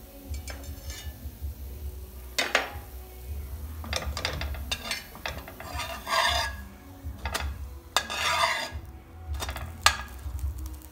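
Metal slotted spatula clicking and scraping against a frying pan's hexagon-patterned steel cooking surface as it works at the edge of a pancake: several sharp clicks and two longer scrapes, one about six seconds in and one near eight seconds.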